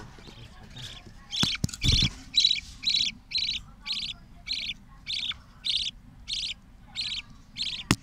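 Budgerigar chicks begging as the hen feeds them in the nest box: a steady run of short, buzzy chirps, about two a second. A low knock about two seconds in.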